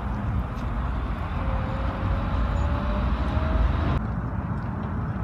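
Steady low engine rumble from a large diesel coach, a Setra, running while parked, with a faint slowly rising whine in the middle. The higher hiss drops away abruptly about four seconds in.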